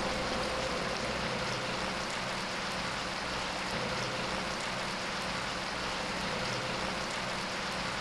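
Beef brisket and bean sprouts frying in an electric pan, a steady even sizzle while the stir-fry is still cooking.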